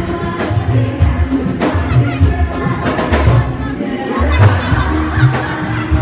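Loud live music with a steady bass beat and a woman singing into a microphone.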